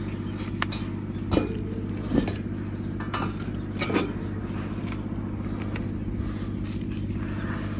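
A steady low mechanical hum with several sharp knocks and clinks over it, the loudest about a second and a half, two and four seconds in.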